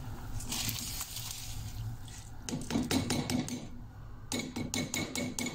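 Drained rice sliding out of a metal mesh strainer into a pot of water, then the strainer knocked repeatedly against the pot's rim to shake out the last grains: two runs of quick, ringing metallic clinks.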